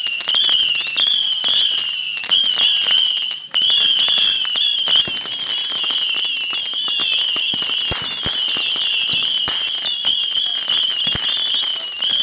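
Whistling firework giving a continuous, slightly wavering high whistle over a steady crackle of small pops. The whistle breaks off for an instant about three and a half seconds in.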